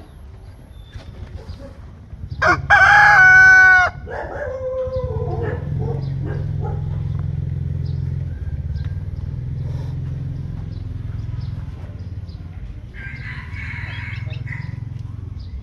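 Naked-neck rooster crowing once, loud, about two and a half seconds in, the call falling away in pitch at its end. A steady low hum follows it.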